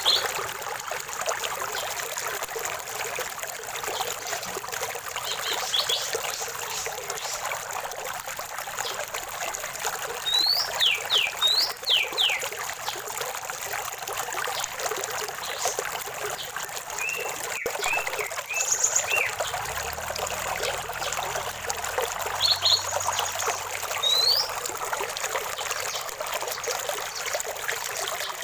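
Running stream water trickling steadily, with birds calling now and then over it: a few quick sweeping whistles around the middle, a short run of chirps, and scattered single chirps.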